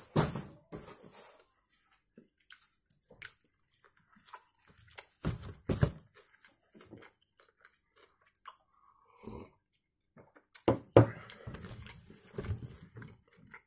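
Close-up eating sounds of a man chewing a folded slice of thin-crust pizza with his mouth closed: soft wet mouth clicks, with a couple of louder bursts of chewing about halfway through and near the end.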